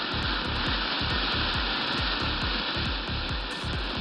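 Gold glittering hand torch firework burning, with a steady fizzing hiss of its spark jet and many sharp crackles from the glitter.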